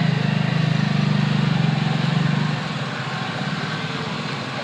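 A motor running with a loud, rapidly pulsing low hum over a steady hiss; the hum stops about two and a half seconds in, leaving the hiss.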